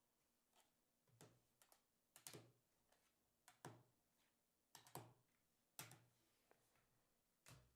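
Faint, scattered clicks and taps on a desk, about one a second with a few doubled, from cards and hard plastic card holders being handled.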